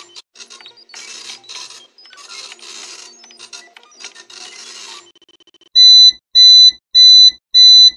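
Faint clattering and clicking noise for about five seconds, then four loud electronic beeps a little under two a second. The beeps are an edited-in transition effect leading into a test-card screen.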